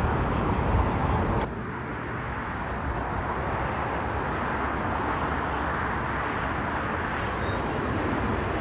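Steady rushing roar of aircraft and road traffic, louder for the first second and a half, then dropping abruptly to a lower, even level.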